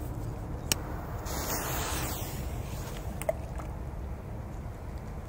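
Low steady wind rumble on the microphone, with a few faint clicks and a short swell of hiss about a second and a half in.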